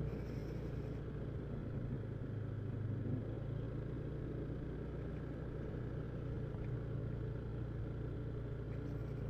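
Yamaha NMAX scooter's engine running steadily under way, a low even hum with road noise.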